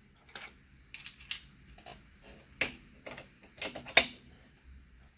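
Scattered light metallic clicks and taps from steel spacers and crankshaft parts being handled and seated on a crank-pressing jig, with the sharpest knock about four seconds in.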